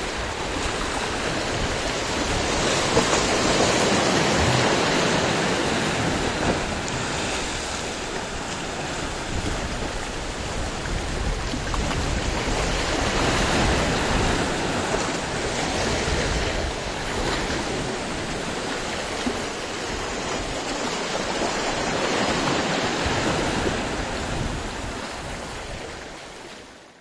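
Wind and sea water rushing, with gusts buffeting the microphone; the level swells and eases slowly, then fades out near the end.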